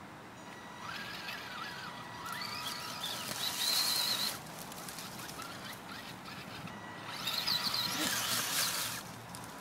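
Electric motor and geared drivetrain of a Vaterra Twin Hammers RC rock crawler whining in first gear as it climbs a dirt hill, the pitch wavering with throttle and load. The whine runs from about a second in to past four seconds, drops away, then comes back for a couple of seconds near the end.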